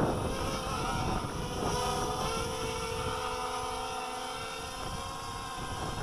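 The brushless motors and propellers of a 250-size FPV racing quadcopter whine as it flies low, several pitches wavering slightly with the throttle.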